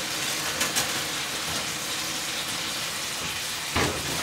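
Meat sizzling steadily in a hot frying pan, with a few light clinks of a baking tray going onto the oven rack and a heavy thump near the end as the oven door is shut.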